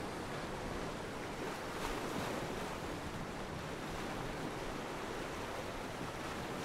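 Surf from the nearby sea, a steady rush of noise, mixed with wind buffeting the microphone.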